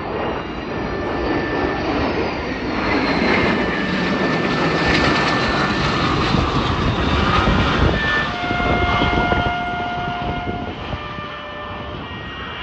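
A formation of jet aircraft flying over: the jet roar swells over a couple of seconds, is loudest through the middle, and falls in pitch as the jets pass before fading away.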